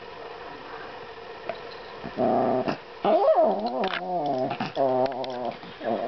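Yorkshire terrier growling to guard a Shake Weight it won't give up: several drawn-out growls that waver up and down in pitch, starting about two seconds in.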